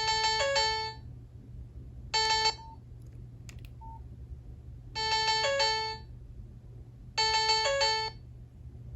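Nokia 5610 XpressMusic mobile phone playing one of its built-in ringtones through its loudspeaker: a short electronic melodic phrase sounds four times with pauses between, the second one briefer than the others.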